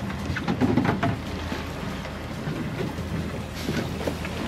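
Water slapping and splashing against a boat's hull in irregular strokes, over a steady low hum.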